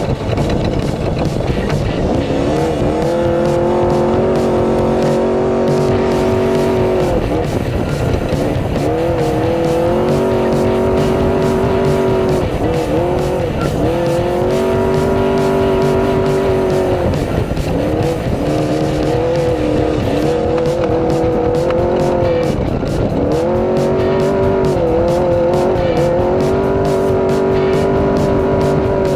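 Off-road race truck's engine heard from inside the cockpit: its pitch climbs and holds steady at high revs for a few seconds at a time, dipping briefly before climbing again, several times over. Underneath runs a constant loud rushing noise with fine rattling.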